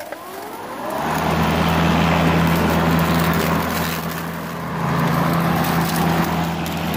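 A Makita 18V X2 (36V) battery-powered lawn mower's electric motor spins up over the first second, then runs steadily with a low hum while its blade cuts wet grass and weeds.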